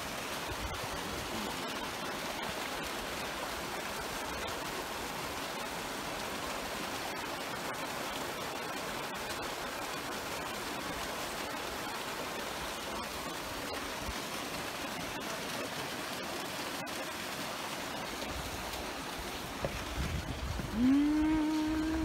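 A small waterfall pouring into a rock pool: a steady, even rush of falling and splashing water. Near the end, a person's voice briefly rises over it.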